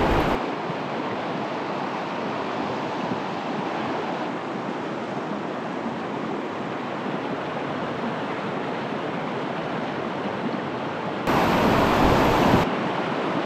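Steady rush of creek water running through shallow white-water rapids. Near the end a louder burst of rumbling noise lasts about a second and a half.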